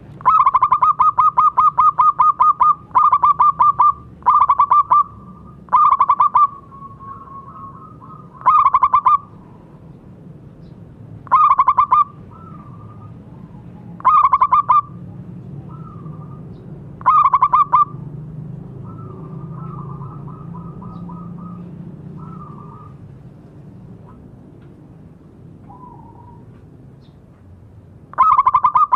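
Zebra doves (perkutut) calling: a long string of rapid, clipped coos, then seven shorter bursts of the same fast coos every two or three seconds. Softer single coos come between the bursts.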